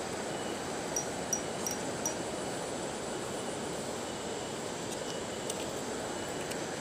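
Steady rushing outdoor noise by a flowing river, with a constant high insect drone above it. A few short high chirps come about one to two seconds in, and a single tick near the end.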